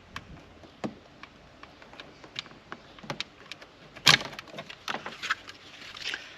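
Scattered light plastic clicks and taps from unplugging the wiring connectors of a power-window switch panel in a car door trim, with one sharper snap about four seconds in.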